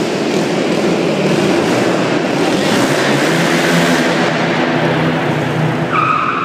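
Quad bike engine running and being revved as the ATV is ridden around a concrete floor, its pitch rising and falling. Near the end a steady high-pitched tone starts up over it.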